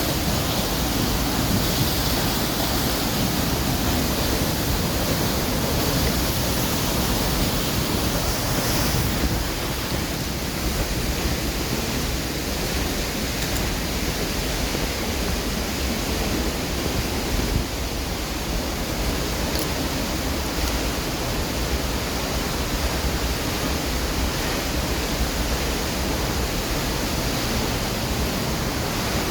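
Waterfall: a steady, loud rush of falling water, a little quieter from about nine seconds in.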